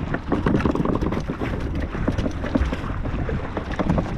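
Two bonita flopping on a kayak deck, their tails drumming out rapid, irregular thumps and slaps, with wind rushing over the microphone.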